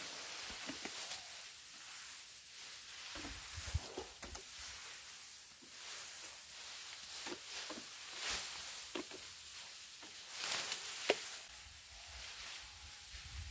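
Wild Asian elephants feeding in tall grass: rustling of the grass with scattered snaps and a few soft thumps, the sharpest about eleven seconds in.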